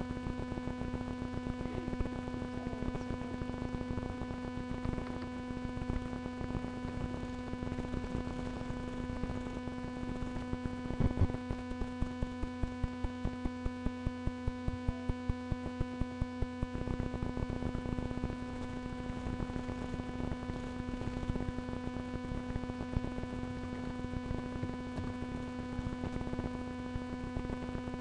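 Steady electrical hum and hiss picked up by a webcam microphone. Near the middle, a quick, even run of short clicks lasts several seconds.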